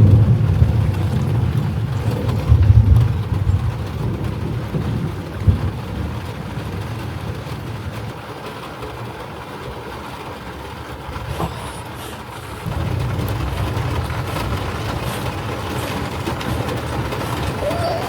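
Thunder rumbling in long, deep rolls, loudest over the first few seconds, dying down, then rolling in again about two-thirds of the way through.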